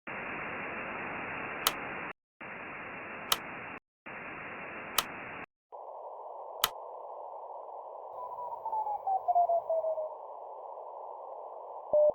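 Radio receiver static, cut off twice and marked by sharp clicks, then narrowed to a muffled band of hiss. A pulsed Morse tone glides down in pitch as it is tuned in, and Morse code dits and dahs at one steady pitch begin just before the end.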